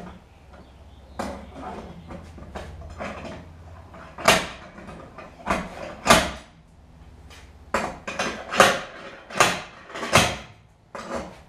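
Irregular clunks and knocks of car parts being handled and fitted by hand, sparse at first and then louder and more frequent from about four seconds in.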